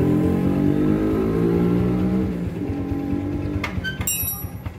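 A motor vehicle engine running, its pitch falling over the first two seconds before it fades. A few sharp clicks follow near the end.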